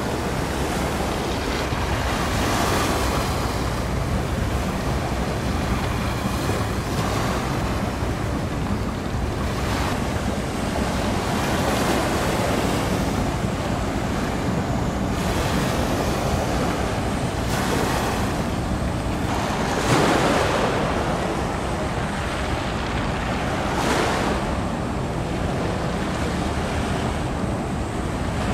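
Wind blowing over the microphone and choppy sea water washing, a steady rushing noise with a few louder surges, the strongest near the end.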